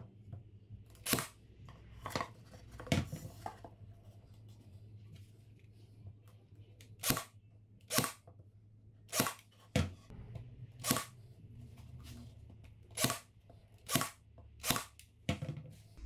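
Cordless pin nailer firing about a dozen pin nails into glued cedar butt joints, each shot a sharp snap, coming in irregular spurts with a pause of a few seconds near the start.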